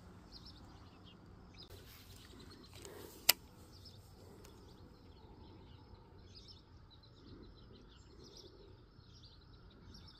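Faint outdoor ambience with small birds chirping over and over. One sharp click about three seconds in is the loudest sound.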